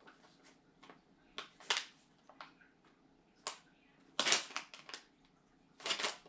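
Packaging of a small part being handled and opened by hand: scattered crinkles and clicks, in clusters about a second and a half in, around three and a half seconds, and again near the end.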